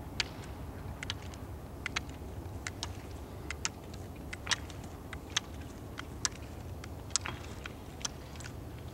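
Carbide-tipped ski pole tips clicking on asphalt as a roller skier poles uphill: sharp clicks roughly every second, often in quick pairs, over a low steady rumble.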